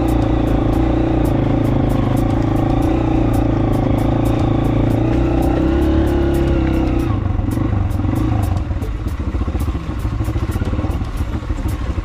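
Small motorcycle engine running steadily under throttle as the bike rides over a rough stony track. About seven seconds in, the throttle eases off and the engine drops to a lower, uneven chug.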